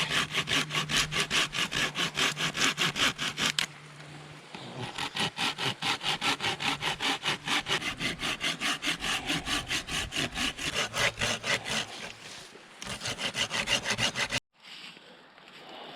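Hand saw cutting through wood in quick back-and-forth strokes, about four a second, pausing briefly twice. About fourteen seconds in it cuts off abruptly, leaving a softer steady hiss.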